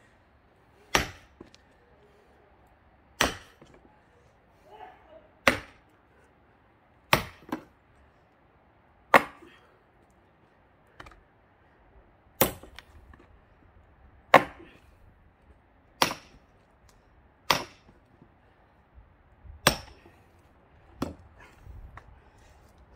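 Heavy blows splitting a thick pine log, about a dozen sharp strikes, one every one and a half to two seconds.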